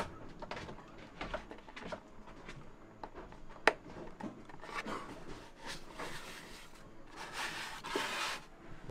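Light knocks and rubbing of people moving about and handling things inside a wooden catamaran hull, with one sharp knock a few seconds in and a scrape lasting about a second near the end.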